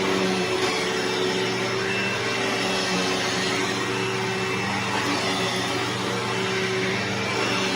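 Bissell Momentum upright vacuum cleaner running steadily while vacuuming, a constant motor hum over airflow noise. The brush roll is on the noisy side, which the owner puts down to worn bearings.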